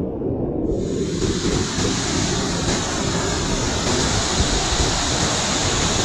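Waterfall pouring onto rocks into a churning pool, heard up close as a loud, steady rush of water. Its higher hiss fills in fully just under a second in.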